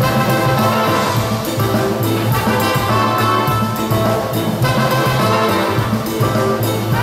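Live jazz band playing: saxophone and trumpet sounding together over drums and bass.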